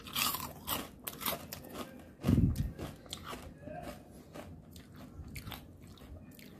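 Crunching bites and chewing of crispy fried potato-and-semolina namak pare, dense sharp crunches at first, then sparser ones. A loud low thump comes about two seconds in.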